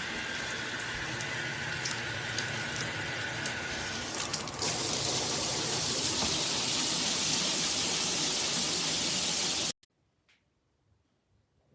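Water spraying steadily from a shower head. About halfway through, the spray turns louder and hissier. Near the end it cuts off abruptly.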